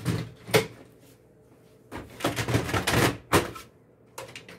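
Hard plastic clicks, knocks and rattles as a drum unit with a replacement toner cartridge is handled and pushed into the front of a Brother DCP-L2500 laser printer. There are two sharp clicks at the start, a busy run of knocks in the middle as the cartridge seats, and more clicks near the end.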